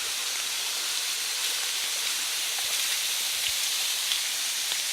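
Steady hiss of heavy rain and a rain-swollen waterfall, with scattered faint ticks of raindrops.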